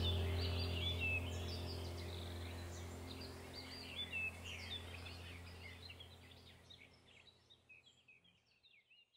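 Birds chirping and warbling over a low, held music drone, a soothing nature-sound track. The whole track fades out steadily and has died away by the very end.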